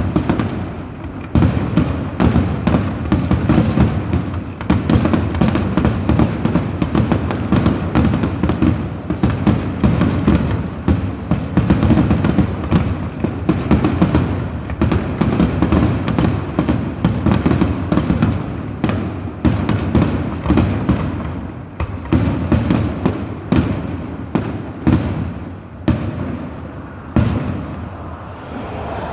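Fireworks display going off in a dense, continuous barrage of booms and crackling reports, several a second, thinning out near the end.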